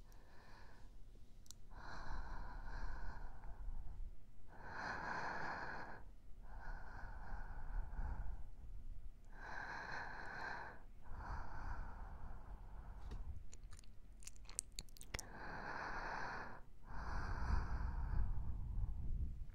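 Slow, soft breaths blown close to a binaural microphone, heard in the right ear only, one every couple of seconds, about eight in all. A few small clicks come about two-thirds of the way through.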